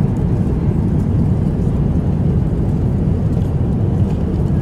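Steady low drone of an airliner in flight, its engines and airflow heard inside the passenger cabin.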